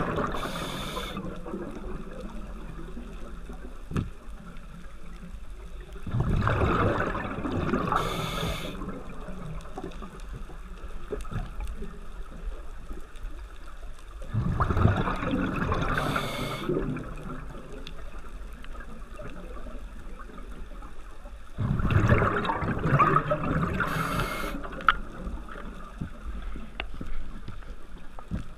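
Scuba diver breathing through a regulator underwater: slow breaths about every seven to eight seconds, each a gurgling rush of exhaled bubbles about two seconds long ending in a short hiss, with a quieter underwater background between breaths.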